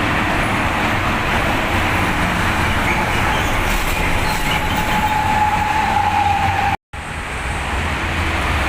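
Steady roar of fast toll-road traffic with heavy vehicles passing close by. A thin whine grows stronger and dips slightly in pitch as a vehicle goes past, then the sound cuts out completely for an instant just before seven seconds in and the traffic noise returns.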